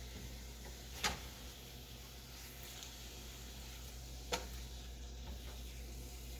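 Chicken frying faintly in a pan as a steady soft sizzle over a low hum, with two brief sharp knocks about three seconds apart.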